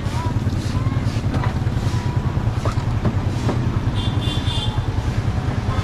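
A motor vehicle engine running close by, a steady rapid low putter. A brief high chirping comes about four seconds in.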